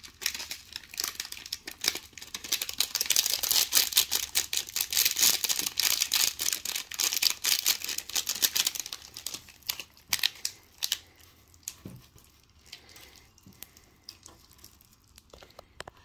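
Slime packed with little styrofoam balls and glitter crackling and crinkling densely as it is worked with the decorations, thinning to scattered clicks after about nine seconds.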